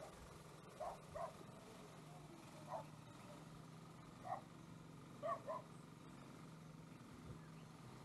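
A dog barking: six short, sharp barks, some in quick pairs, over a steady low hum.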